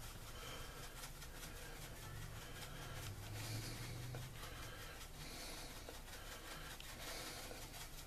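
Pepper being dispensed over food: faint, rapid, scratchy clicking over a low steady hum.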